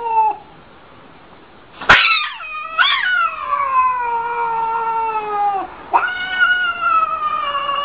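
Cat yowling in two long, drawn-out calls, the first sliding slowly down in pitch. A sharp knock comes about two seconds in, just before the first call.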